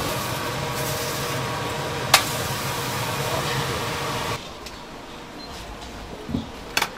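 Steady hiss of steam from a large dumpling steamer over its burner, with one sharp knock about two seconds in. The hiss cuts off abruptly a little past four seconds, leaving a quieter background with a single click near the end.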